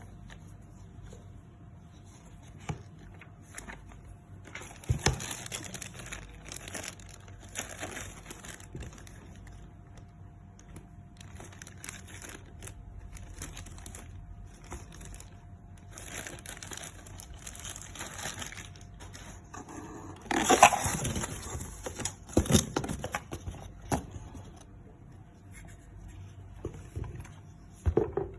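Cardboard box and packaging being opened and handled: bouts of rustling, crinkling and tearing with a few knocks, the loudest about twenty seconds in.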